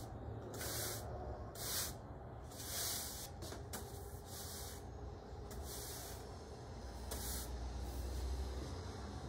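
Angled broom bristles sweeping spilled potting soil across a concrete floor: short scratchy strokes about every second or so, which stop about seven seconds in.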